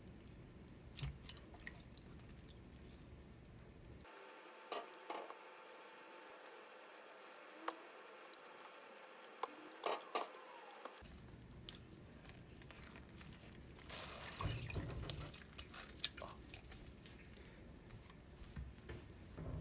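Faint splashing and dripping of water as wet blanched butterbur leaves are gathered by hand in a plastic basin of water and squeezed out, with scattered small clicks. There is a louder stretch of splashing about two-thirds of the way through.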